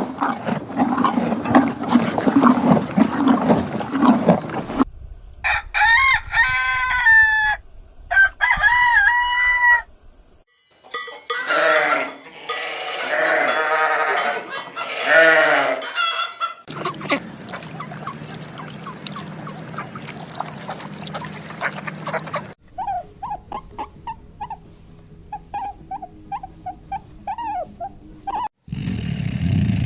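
Farmyard chickens calling, spliced from several short clips with abrupt cuts between them: roosters crowing and hens clucking, with a run of short, quick repeated calls near the end.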